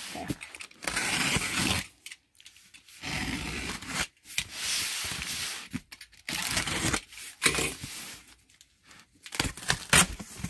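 A box cutter slicing along the packing tape on a cardboard carton in about five rasping strokes of roughly a second each. Near the end come a few short sharp clicks as the cardboard flaps are pulled open.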